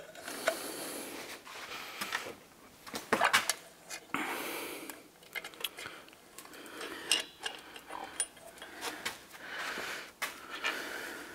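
Small metal clinks and rubbing of drum brake hardware being fitted by hand: steel shoe retaining pins, springs and clips knocking against the brake shoes and backing plate. The sharpest clicks come about three seconds in, with a few more scattered later.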